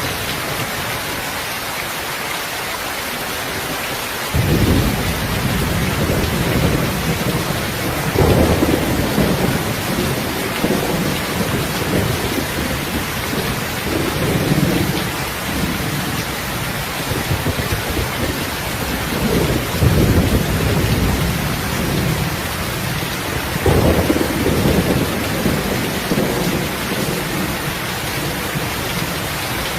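Steady heavy rain hiss with low rolling thunder. The rumbles come in about four seconds in and swell again and again.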